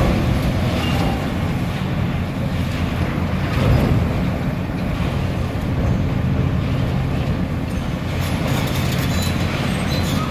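Chicago CTA subway train running in the tunnel: a steady, loud low rumble, with light sharp clicks near the end.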